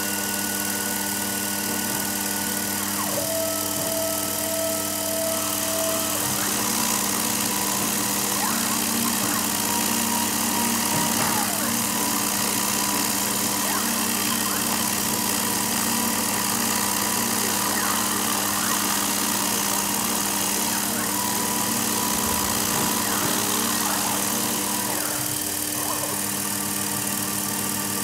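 Sherline 5410 CNC mill running steadily, its end mill cutting into particleboard, with a steady motor hum. Over it come short steady whines at several different pitches that start and stop every few seconds as the stepper-driven axes move.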